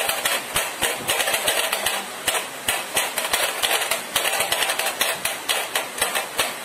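Rapid hand drumming on a small box on a tabletop: quick, rhythmic strokes, several a second, played as a drum pattern.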